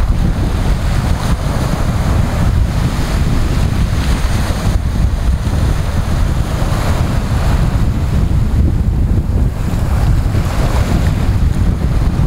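Waves breaking and washing in the shallows, the surf swelling and ebbing every few seconds, with wind buffeting the microphone as a heavy rumble underneath.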